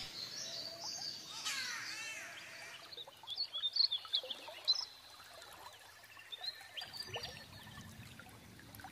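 Birds chirping over quiet open-air rural ambience, with a cluster of short, louder chirps about three to five seconds in.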